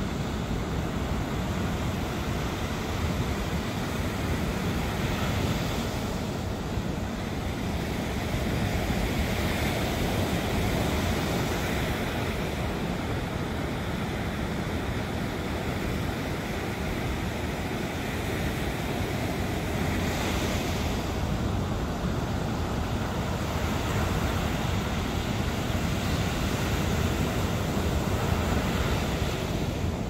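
Surf breaking steadily on a sandy beach, a continuous wash of waves that swells now and then, with wind rumbling on the microphone.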